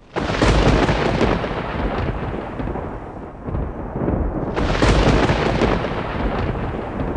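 Two thunderclaps used as a sound effect. The first comes right at the start and the second about four and a half seconds in. Each is a sudden crash with a deep rumble that fades over a few seconds.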